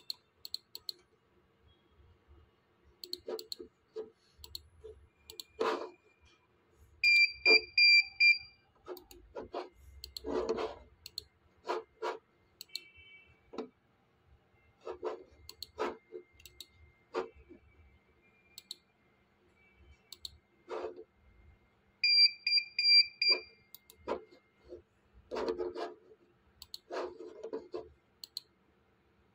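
Computer mouse clicking irregularly, with two runs of rapid, high electronic beeps, one about seven seconds in and one about twenty-two seconds in.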